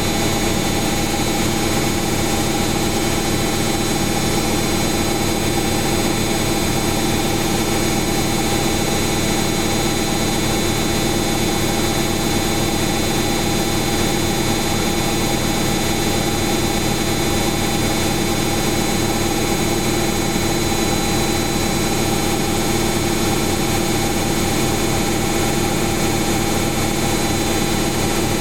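Samsung Eco Bubble washing machine on its spin cycle, the drum spinning at a steady speed: an even whirring hum with several held tones over a rush of noise.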